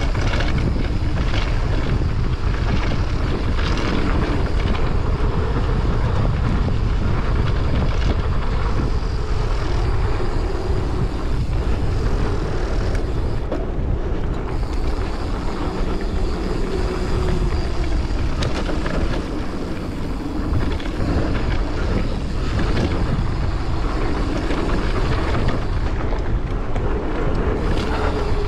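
Enduro mountain bike ridden on a dirt trail: wind buffeting the microphone over the hiss of tyres rolling on dirt and gravel, with frequent knocks and rattles from the bike.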